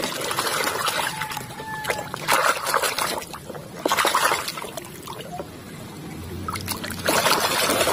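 A hand swishing and splashing in a tub of muddy water, washing a toy: irregular sloshes and splashes, some louder than others.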